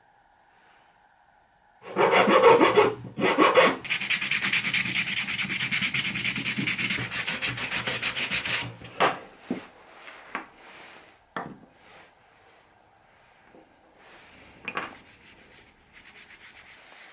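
Sandpaper rubbing on a small wooden dowel, sanded by hand. Starting about two seconds in, a few heavy strokes run into fast, even back-and-forth rubbing for several seconds, then it stops. After that, a few light knocks of wooden parts being set on the workbench.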